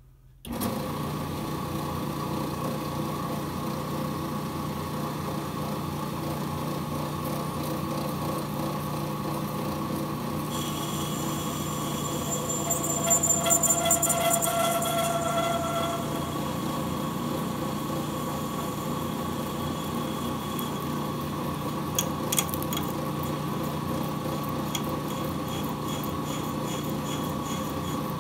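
AMMCO brake lathe switched on half a second in, then running steadily with a motor-and-drive hum. About a third of the way in, a higher ringing from the cutter taking a pass across the arbor face joins in. It grows loudest near the middle and fades out just past it. Two sharp clicks come a little past the three-quarter mark.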